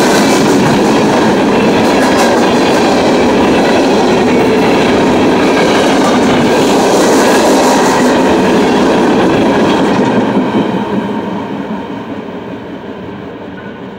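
CSX freight train's open-top hopper cars rolling past close by, steel wheels clicking over the rail joints under a steady rumble. About ten seconds in the noise fades away as the end of the train goes by.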